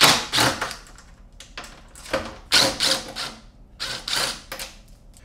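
Cordless power driver with a Torx bit backing out the bolts that hold the front carrier to the fender, in about four short rattling runs of under a second each.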